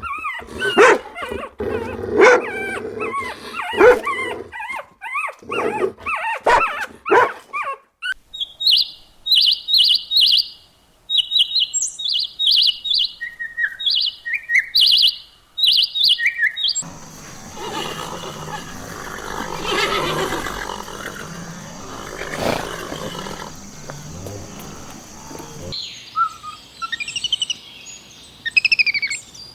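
Repeated loud animal cries for about the first eight seconds, then small birds chirping in short high notes. Near the middle there is a stretch of busy, noisy background, and birds chirp again near the end.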